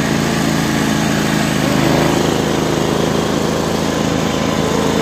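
Riding lawn mower's small engine running steadily as the mower is driven through snow.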